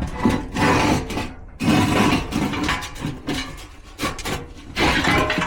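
Irregular scraping, rubbing and knocking as a furnace blower assembly is handled and worked free, in uneven bursts with short pauses between them.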